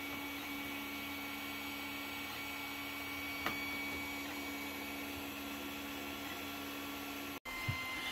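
Creality Ender 3D printer running during a print, a steady hum with several high, even whining tones. There is a faint click about three and a half seconds in, and the sound drops out for an instant near the end.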